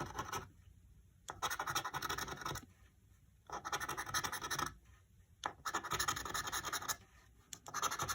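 Scratch-off lottery ticket being scratched: short spells of quick rasping strokes, each about a second long, broken by brief pauses, about four times.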